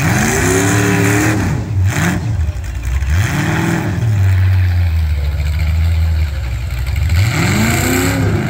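A demolition derby car's engine revving hard: pitch rising and falling in quick revs, held steady at high revs for a few seconds in the middle, then revved up again near the end.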